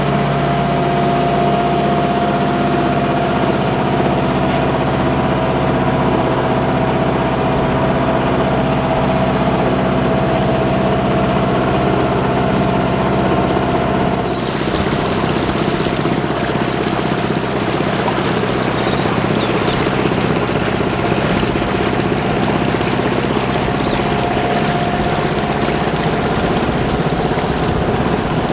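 Motor launch's engine running steadily under way, a steady hum with a high whining tone. About halfway through the hum turns rougher and a rushing hiss joins in.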